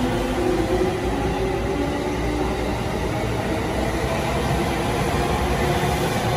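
JR Musashino Line electric commuter train running along the platform: steady rumble of wheels on the rails with a whine from the traction motors.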